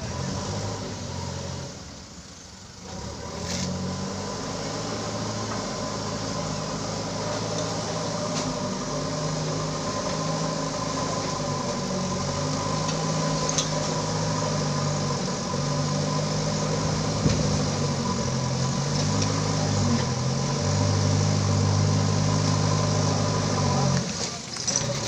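JCB backhoe loader's diesel engine running while digging, its note rising and falling in steps as the hydraulics take load, with a short drop in level about two seconds in and a few sharp clicks.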